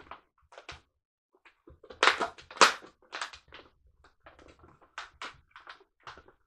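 Latex modelling balloons squeaking and rubbing as they are twisted and bent into shape. The sounds come as a string of short squeaks and rubs, the loudest a pair about two seconds in.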